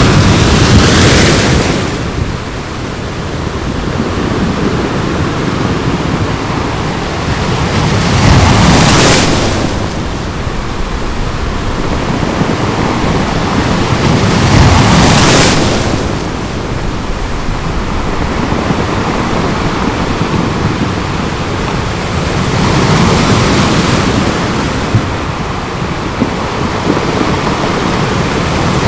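Ocean waves breaking on a beach: four surges of surf about six to eight seconds apart, with a steady wash of water between them.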